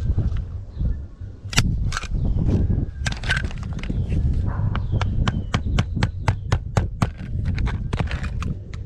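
A run of sharp taps or clicks, a few scattered at first, then an even series of about three to four a second, over a steady low rumble.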